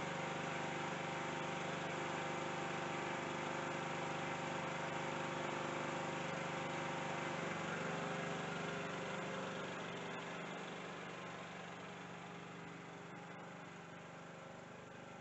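Lawn mower engine running steadily, getting gradually quieter over the second half.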